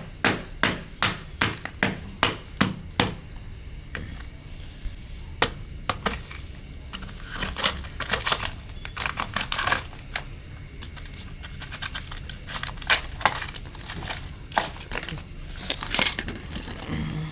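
Hammer striking a block of ice in quick, even blows, about three a second, for the first three seconds. The rest is irregular cracking, crunching and clinking of the ice as it breaks apart.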